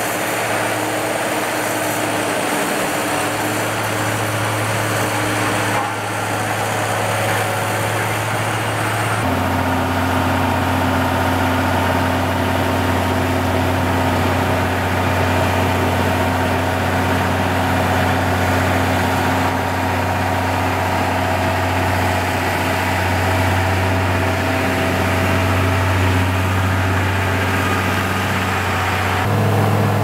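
Diesel engine of a Komatsu GD505A motor grader running steadily as it works the gravel, with a road roller's diesel engine alongside at the start. The engine note changes abruptly about nine seconds in and again near the end.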